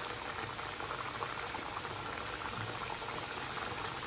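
Thattai vadai discs deep-frying in hot oil: a steady, dense sizzle of bubbling oil. The cook takes a lively sizzle like this as the sign that the vadai will come out crisp.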